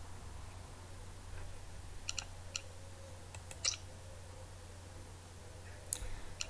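Scattered computer mouse clicks, a cluster in the middle and two more near the end, over a faint steady low hum.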